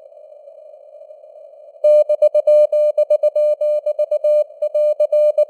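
Morse code sent at about 19 words per minute: a single steady tone keyed on and off into dots and dashes over a narrow band of simulated radio hiss. For about the first two seconds only the hiss is heard, then the keying starts.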